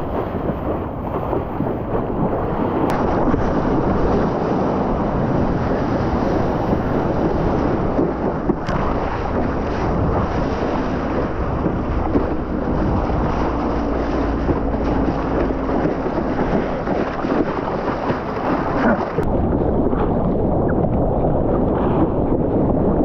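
Ocean surf rushing and wind buffeting a GoPro's microphone: a loud, steady, noisy rush with a few brief sharp clicks.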